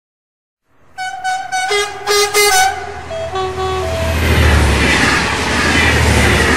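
Channel intro sound effect: from about a second in, a short run of pitched notes, some sounding together, stepping up and down in pitch for about three seconds. It gives way to a loud, steady low rumble.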